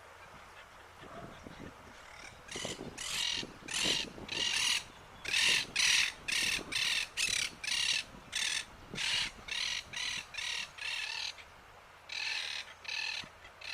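Southern crested caracara calling: a long run of short, harsh, rasping calls, about two a second, starting a couple of seconds in, with a brief pause near the end before a few more.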